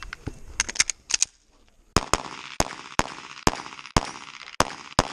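A string of pistol shots at an irregular, quick pace, about eight in all, starting about two seconds in, each with a ringing echo tail; a few fainter sharp cracks come in the first second and a half.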